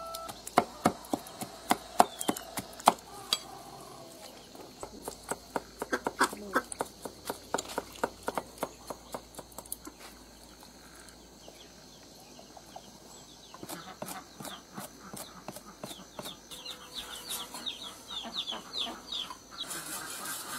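Cleaver chopping on a thick round wooden chopping block. At first it makes heavy, spaced strikes cutting pork, then quick, rhythmic runs of lighter chops as ginger and garlic are minced.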